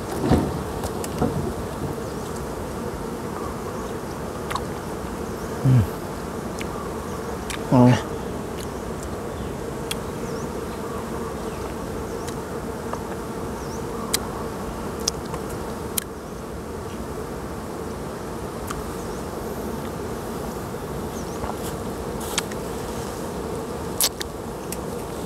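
Honey bees buzzing in a steady drone around freshly cut brood comb. A couple of brief louder low sounds come about 6 and 8 seconds in, and there are scattered sharp clicks in the second half.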